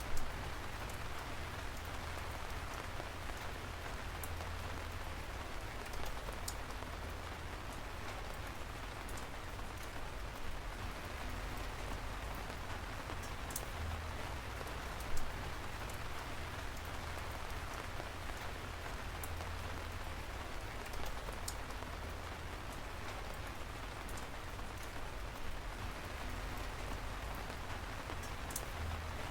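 Steady rain falling, an even hiss with a few sharp ticks now and then.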